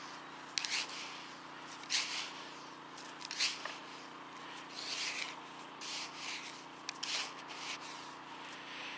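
Loose beach sand being scraped and scooped out of a dig hole by hand, with a pinpointer probe pushed through it: a series of short, irregular rasping sweeps, about one or two a second.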